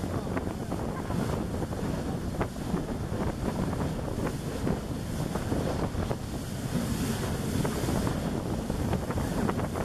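A boat's bow wave rushing and splashing along the hull while under way, with small irregular splashes and wind buffeting the microphone.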